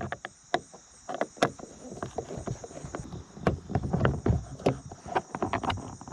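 Irregular clicks and knocks of a screwdriver and plastic door trim being handled as a screw is taken out of a car's door panel, over a steady high hiss.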